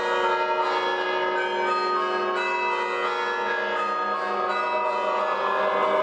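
Church bells pealing, many strikes in quick succession with their tones ringing on and overlapping.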